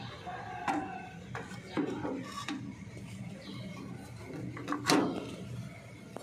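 Clicks and knocks of a FANUC power supply module's control board being worked loose and pulled from its slot by hand. A few separate knocks, the loudest about five seconds in, sound over a steady low hum.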